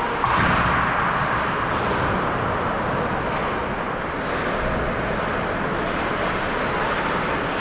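Ice hockey play in an arena: a sharp bang against the boards about a quarter second in, echoing through the rink, then a steady wash of noise from skating and play on the ice.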